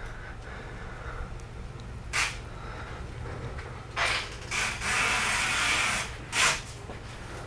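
Hands handling small differential parts as a cross pin is fitted: a few short rubbing, rustling sounds and one longer rubbing hiss of about a second and a half just past the middle, over a steady low hum.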